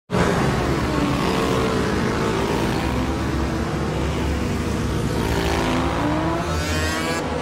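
Cartoon sound effect of a swarm of wasps buzzing in flight, many buzzing tones sliding up and down as they fly past. It starts abruptly and stays loud throughout.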